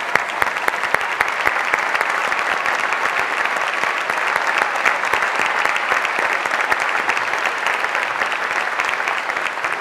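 A large theater audience applauding steadily, a dense patter of many hands clapping. A few louder single claps stand out at the start.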